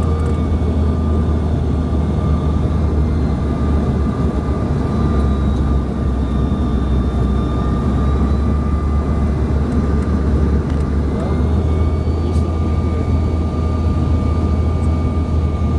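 Cabin noise of a CRJ-700 regional jet on approach: a steady loud low rumble with a constant whine from its rear-mounted General Electric CF34 turbofans. Fainter higher tones drift slightly in pitch partway through as the engines spool up and down to counter gusty crosswinds.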